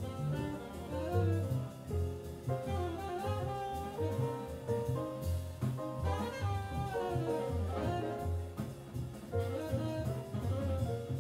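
Live jazz from a small band: a saxophone plays a moving melody over upright double bass and a drum kit with cymbals.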